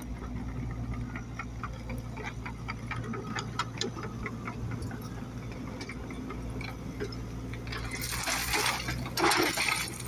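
Steady low machine hum under scattered small clicks and ticks, with a burst of hissing starting about eight seconds in.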